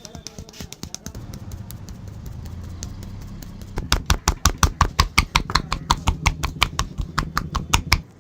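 Hands striking rhythmically in a percussive massage: quick light taps at first, then loud slaps about five a second from about four seconds in, stopping abruptly near the end. A low steady hum runs underneath.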